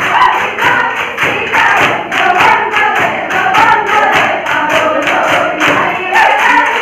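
Women singing a Jeng Bihu song together in high voices, over a quick, steady beat of percussive strikes.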